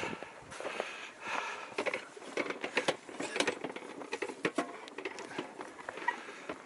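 A row of metal prayer wheels being spun by hand, giving a run of irregular knocks and clatters as they turn on their spindles.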